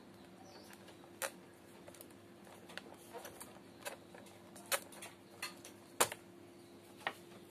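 Irregular light clicks and ticks, about seven in all with the sharpest near six seconds in, over a faint steady hum.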